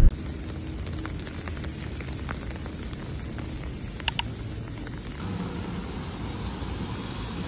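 Steady hiss of a rainy city street, with faint scattered ticks and two sharp clicks in quick succession about four seconds in.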